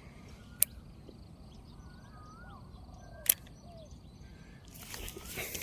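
Outdoor ambience with scattered bird calls, broken by two sharp clicks about two and a half seconds apart, and a rush of noise that swells near the end.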